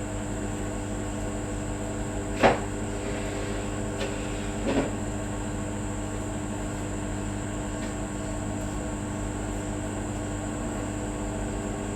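Kitchen handling noises from plastic food containers and lids: a sharp knock about two and a half seconds in, a light click, then a duller knock near five seconds, over a steady mechanical hum.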